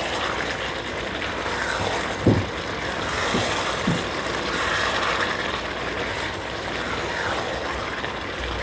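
Pieces of lamb liver frying in tomato-onion masala in a pot over high heat, sizzling steadily as they are stirred with a silicone spatula. A few low knocks of the spatula against the pot come about two to four seconds in.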